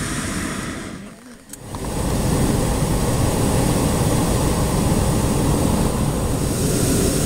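Hot-air balloon's propane burner firing: a blast that stops about a second in, then after a short pause a long, steady roar from about two seconds in, heating the envelope as the balloon lifts off.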